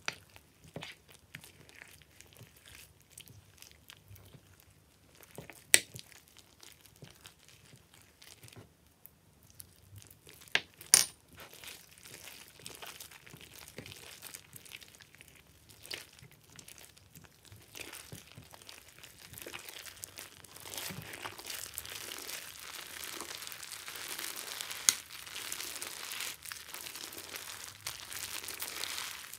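Clear slime full of foam beads being stirred and squeezed by hand in a glass dish: crunchy, crinkly crackling with a few sharp clicks. The crackling grows denser and steadier about two thirds of the way through.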